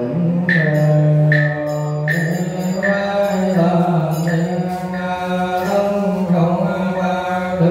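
Buddhist monks chanting a requiem sutra in a steady, sung male voice, with a regular knocking beat about once a second.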